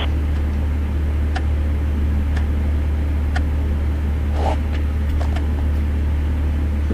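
A steady low mechanical hum, like an idling engine, with faint ticks about once a second.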